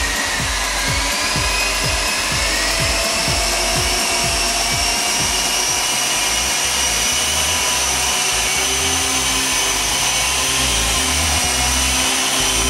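Walkera CH-46 tandem-rotor electric RC helicopter spinning up and lifting into a hover: the whine of its four small electric motors rises in pitch over the first couple of seconds, then holds steady. Low gusty buffeting from the rotor wash comes and goes under the whine.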